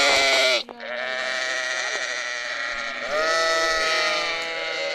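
Sheep bleating in long, drawn-out calls: one breaks off about half a second in, and a louder bleat starts about three seconds in.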